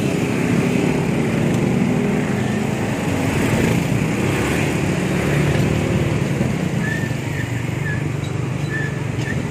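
Motorcycle and scooter engines running steadily in dense stop-and-go traffic: a continuous low engine drone over road noise.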